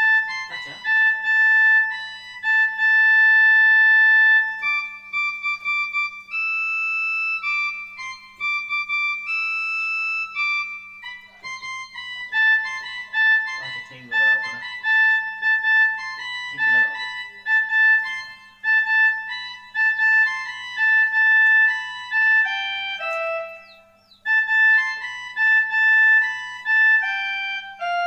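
Casio portable electronic keyboard playing a slow melody, one held note at a time, the notes sustained evenly rather than fading, over a faint steady hum.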